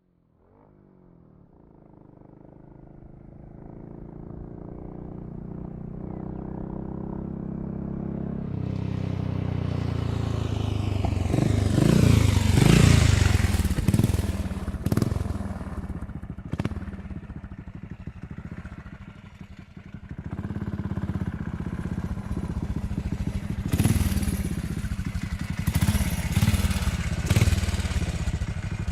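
Motorcycle engine running, growing steadily louder over about the first twelve seconds to a loud peak near the middle, where its pitch sweeps. It eases off, then rises again in the second half, with several sharp cracks along the way.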